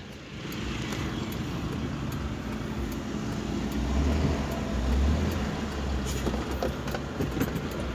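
Cabin noise of a Toyota Lite Ace van on the move: steady engine and road rumble, with the low rumble growing louder in the middle.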